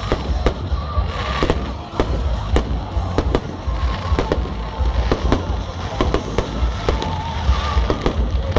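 Aerial fireworks bursting overhead: a rapid, irregular string of sharp bangs, two or three a second, over a steady low rumble.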